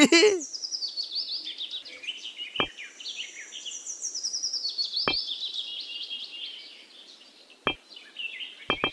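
Birdsong with repeated high chirps and descending trills. Three sharp single clicks come a couple of seconds apart, and a brief loud falling sound comes right at the start.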